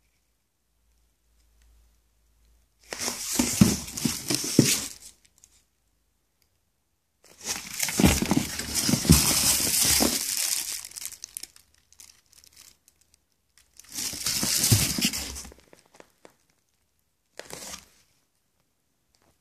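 Plastic bag wrapping crinkling as spherical aerial firework shells are handled and lifted out of a cardboard box. It comes in three long bursts with a short one near the end, and silence between them.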